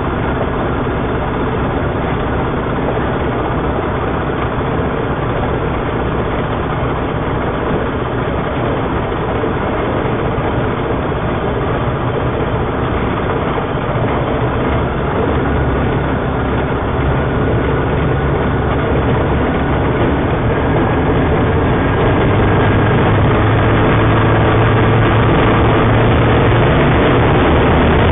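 Homebuilt Kitfox-style taildragger's engine and propeller running at taxi power, heard from inside the cockpit. About twenty seconds in it grows louder and deeper as power is brought up.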